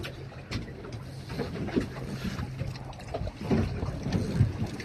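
Water slapping and splashing against the side of a small fishing boat at sea, with wind on the microphone, over a steady low hum. The splashing grows busier about three seconds in.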